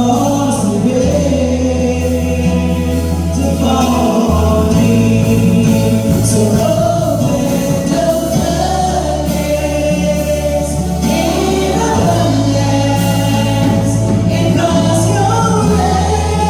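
Gospel choir singing with instrumental accompaniment, a low bass holding long notes that change every few seconds under the voices.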